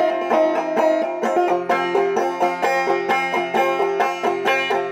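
Five-string banjo played in clawhammer down-picking style: a steady rhythm of picked notes and strums at about four or five strokes a second, with harsh, sharp brushes of the fingers across the strings as the picking hand flicks wide open.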